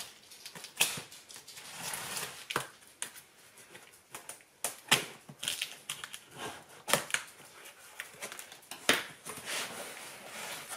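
A cardboard parcel being opened by hand: irregular sharp cracks and knocks every second or so, with rustling and scraping of cardboard and packing material between them.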